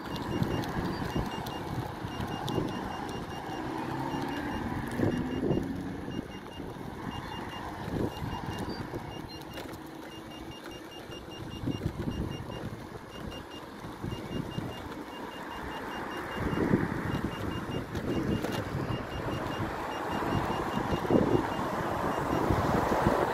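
Electric unicycle beeping: short high beeps repeating in uneven groups, steadily, while it rides. Under them is rough wind noise and passing traffic.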